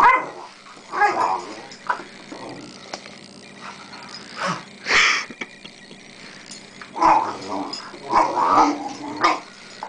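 Rhodesian ridgeback puppy making short, scattered play noises as it wrestles with a person's foot. There is a busier run of them in the last few seconds.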